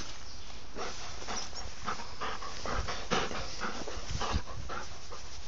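A dog panting close up, a quick uneven run of breaths, out of breath after running to fetch a thrown toy.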